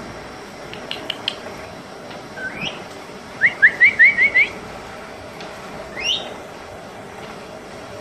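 Young African grey parrot whistling: a few sharp clicks, then a rising whistle, a quick run of about six short rising notes, and one more rising whistle near the end.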